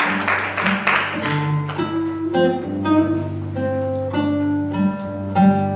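Eight-string acoustic guitar playing a jazz intro of plucked chords and notes, while the tail of applause dies away in the first second or so.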